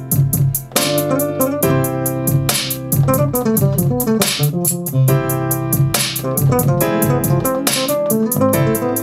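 Beat playing from a Maschine Studio: keyboard-sounding chords played on the pads over programmed drums, with a fast steady hi-hat tick, a strong drum hit about every second and a half, and a bass line underneath. The chord changes come every second or two.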